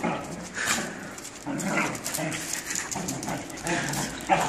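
Two Australian shepherds growling in short, rough, irregular bouts as they wrestle each other.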